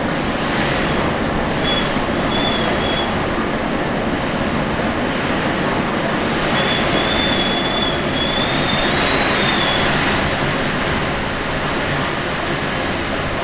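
Typhoon wind blowing hard and continuously, with a thin high whistle about two seconds in and again from about six to ten seconds in, where the gusts are strongest.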